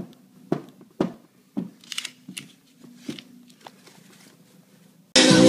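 Light, sharp taps of fingertips on a computer screen, several at uneven intervals, with a soft rustle of a paper banknote being handled. Loud music starts abruptly near the end.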